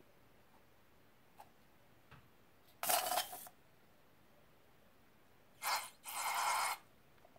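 Foam spurting out of the neck of a squeezed rubber balloon with a hissing sputter, in three short spurts: one about three seconds in and two close together near the end.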